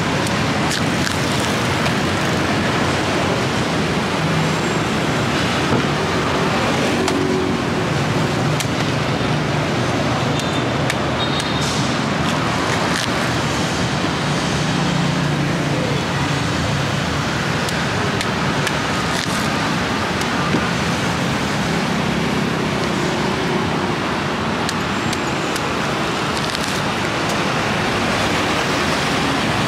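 Steady road traffic noise, with the hum of motor vehicles swelling as they pass a few times.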